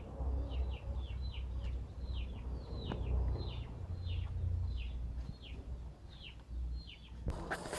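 A bird calling over and over in short falling chirps, about two a second, over a low rumble. A brief burst of rustling comes near the end.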